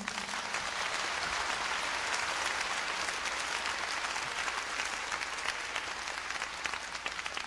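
Concert audience applauding, a dense, steady patter of many hands clapping that eases slightly toward the end.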